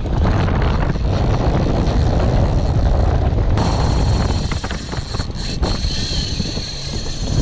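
Strong wind buffeting the microphone, a steady low rumble over surf washing on the beach. About three and a half seconds in, a steady high whine joins and holds.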